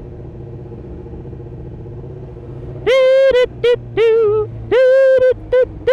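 A motorcycle engine runs low and steady in slow traffic, then about three seconds in a man's voice close to the helmet mic hums or sings loud wordless notes, a string of held notes on one pitch broken by short gaps, with one note sliding down near the end.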